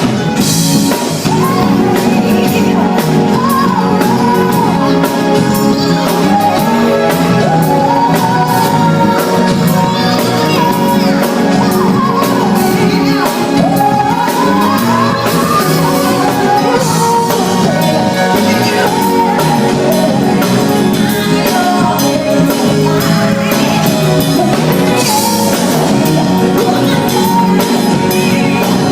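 Live band with drum kit playing a song while a singer hums the melody over it without words, as a sound check.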